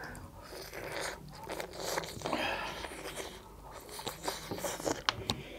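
Close-up eating sounds: chewing and biting on chicken eaten by hand, and soup slurped from a steel bowl, with scattered small clicks and smacks.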